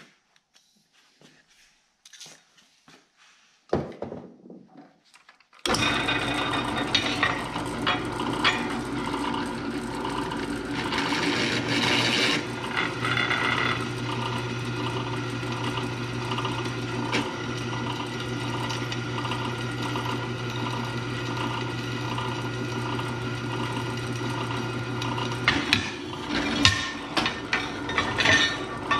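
Drill press starting about six seconds in and running steadily as its twist bit bores through a quarter-inch steel plate, lubricated with WD-40. The motor hum stops near the end, followed by a few knocks of the steel plate being handled on the table.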